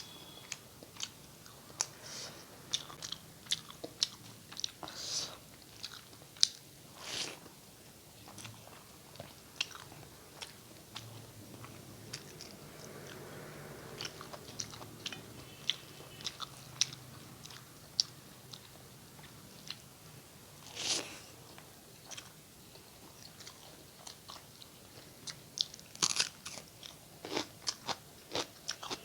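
Close-miked eating: irregular wet chewing, smacking and clicking mouth sounds as someone chews mouthfuls of rice and curry, with a few louder smacks.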